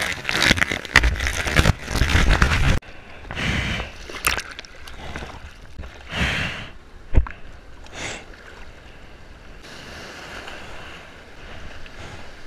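Breaking whitewater rushing and splashing over a waterproof action camera in the shore break. About three seconds in the loud rush cuts off suddenly and turns muffled, followed by gurgling, a few separate splashes and a sharp knock, then a steadier, softer wash of foam.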